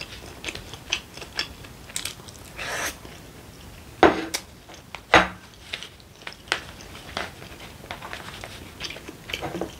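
Close-miked eating sounds: chewing and mouth smacks over stew and rice, with small clicks of a wooden spoon and chopsticks. Two loud sharp knocks, about four and five seconds in, from the utensils striking the bowl or pot.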